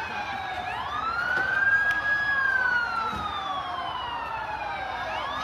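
Vietnamese traffic police siren wailing. Its pitch rises quickly, holds briefly, then falls slowly over about three seconds and starts to rise again near the end.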